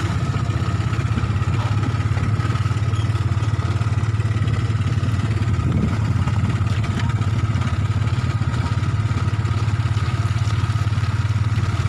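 Motorcycle engine running steadily at low speed as the bike is ridden slowly, a low, evenly pulsing throb.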